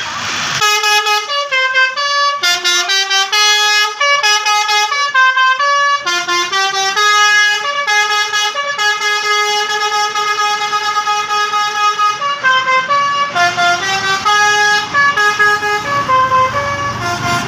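A bus's Basuri 'telolet' multi-tone musical air horn playing a melody of short stepped notes, starting about half a second in, with one note held for several seconds in the middle.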